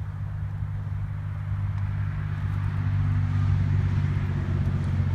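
Highway traffic: a steady low drone of vehicles that grows louder from about two seconds in.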